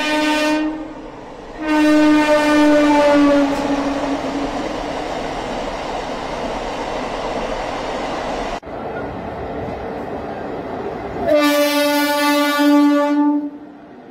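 A passenger train's horn sounds three times: a short blast at the start, a longer one a couple of seconds in that drops slightly in pitch, and a long blast near the end. Between the blasts the train rumbles and rattles as it runs along the track.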